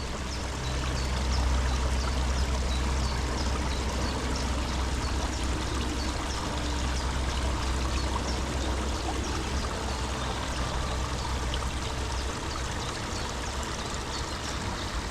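Steady rushing, like running water, over a low rumble that fades near the end, with a bird's short high chirp repeated again and again above it.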